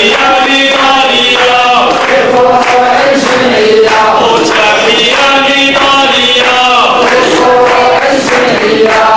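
A man's voice chanting through a microphone and loudspeaker, a continuous melodic line of long held notes that glide up and down.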